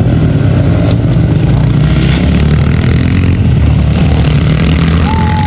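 Pit bike engines running during a race, a loud steady drone of small single-cylinder motorcycles at speed.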